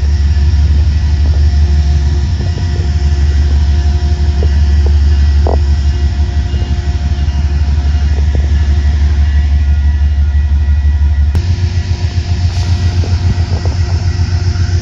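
Commuter train's diesel locomotive running close by, a steady low drone. About eleven seconds in there is a sharp click, and the drone shifts slightly higher and pulses.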